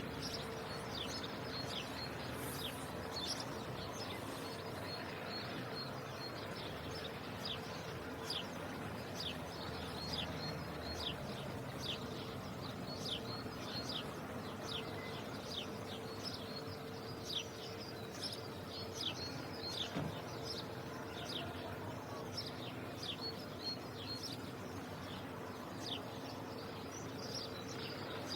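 Sparrows chirping: many short, high, falling chirps, one or two a second, over a steady background hum.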